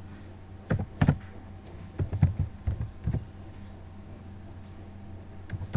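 Computer keyboard keystrokes: irregular clusters of short clicks during the first three seconds, a pause of about two seconds, then more clicks near the end. A faint steady low hum sits underneath.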